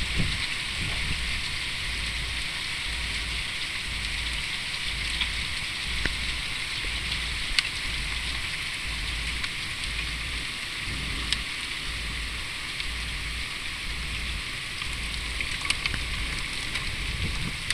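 Hail and rain falling on paving and gravel during a thunderstorm: a steady dense hiss with scattered sharper clicks of individual hailstones striking.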